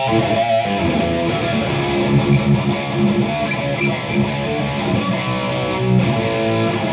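Electric guitar played through a PRS MT-15 amplifier's high-gain red channel, heard from the speaker cabinet in the room: continuous distorted riffing with chords and single notes.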